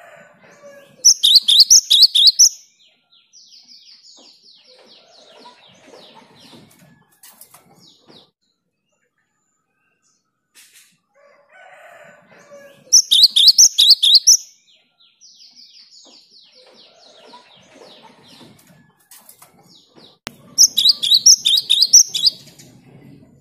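A cinereous tit (gelatik batu) singing loud, rapid bursts of high repeated notes three times, each burst about a second and a half long. After the first two bursts comes a softer, buzzy run of notes.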